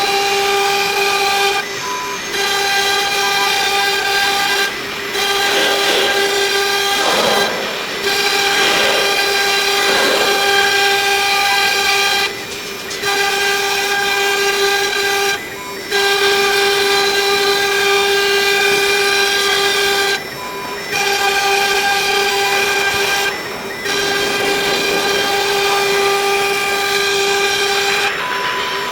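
ELE 1212 CNC router running: a loud, steady high motor whine that cuts out briefly every few seconds and starts again, with some wavering sweeps in pitch between about 6 and 10 seconds in.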